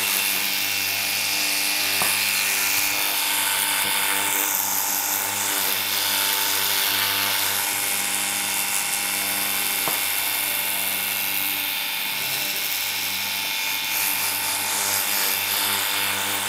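24V cordless pressure washer running continuously: the battery-powered pump's steady, a bit noisy hum with the hiss of the water spray.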